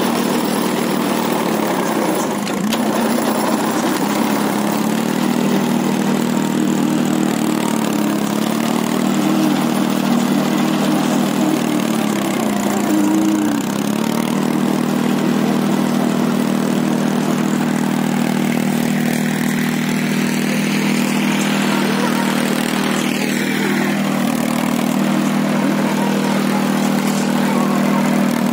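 Orchard DLX compact tractor's diesel engine running steadily while it drives a rotavator through the soil. Its note dips and wavers a few times as the load changes.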